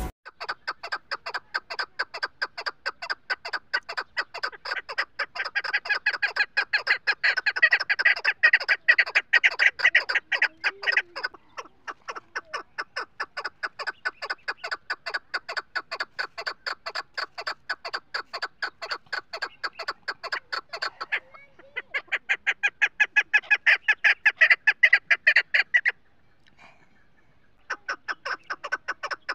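Chukar partridge calling: a long run of rapid, evenly repeated clucking notes. The run grows louder for stretches and breaks off briefly three times.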